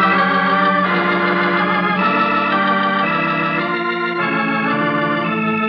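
Organ music bridge between scenes of a radio drama: loud sustained chords that shift several times.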